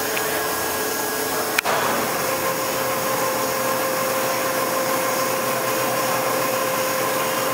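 Kinwa CL78 large CNC lathe running: a steady hissing machine noise, with a sharp click about one and a half seconds in, after which a steady whine comes in.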